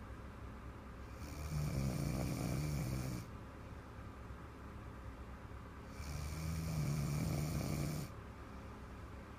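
A little girl's big snore: two long snores, each about two seconds, about five seconds apart, with quieter breathing between.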